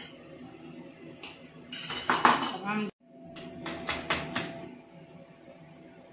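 Steel spoon scraping and clinking against a bowl and glass dessert cups while spooning out stewed apricot. There is a loud cluster of clatters about two seconds in and a sudden break just before halfway, then several sharp clinks.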